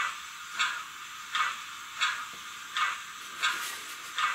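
Zimo sound decoders in Roco HO-scale BR52 steam locomotive models playing steam sound through their small loudspeakers: short hissing steam beats, a little under two a second, over a steady background hiss.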